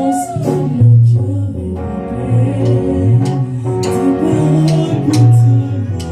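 Gospel worship music with guitar, a steady bass line and drums, and singing.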